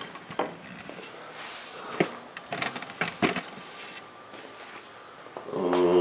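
A few sharp knocks and clatters of things being handled and set down on a workbench, with a short hummed voice near the end.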